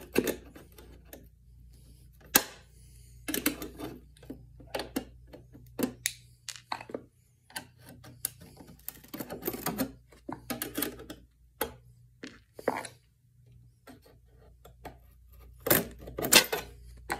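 A screwdriver prying at the thin aluminum drip edge strip on a 1969 Fender Super Reverb speaker baffle, working out the small finish nails that hold it to the wood: irregular clicks, taps and short scrapes of metal on metal and wood, with a few louder clacks near the end.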